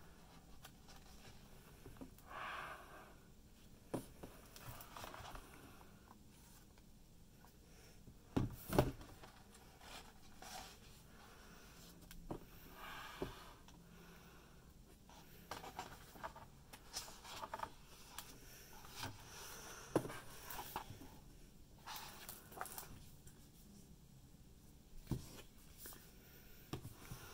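Pages of a large hardcover book being turned by hand: soft paper swishes and rustles with scattered light taps as the book is handled, the sharpest knock about nine seconds in.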